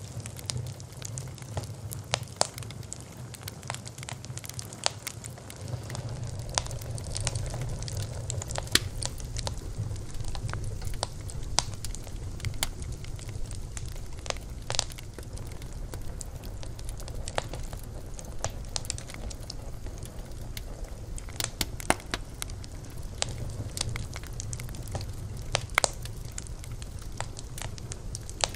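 Bonfire burning: a steady low rumble of flame with frequent, irregular sharp crackles and pops from the burning wood. The rumble grows a little louder about six seconds in.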